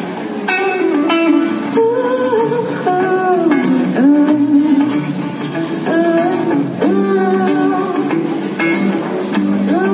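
Live amplified performance: a woman singing a melody over strummed acoustic guitar and electric guitar, heard through the stage PA.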